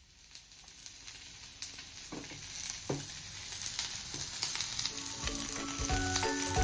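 Meat, garlic cloves and enoki mushrooms sizzling on a round grill pan over a portable gas stove; the sizzle grows steadily louder as the pan heats. A light, jingly music track comes in about five seconds in.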